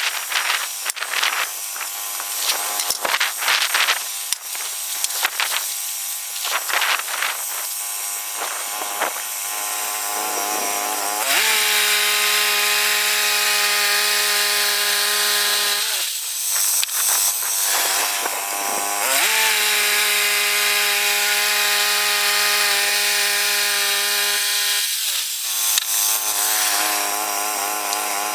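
Woodland Mills HM122 bandsaw sawmill cutting a red cedar log, its engine running and blade whining steadily in two long stretches with a short break between them. The first third is more irregular, with clattering and knocks.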